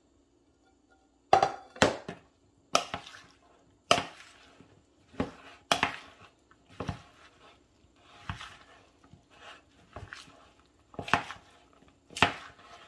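Metal spoon knocking against a mixing bowl while stirring shredded chicken salad: a dozen or so sharp clinks, irregularly about one a second, starting about a second in.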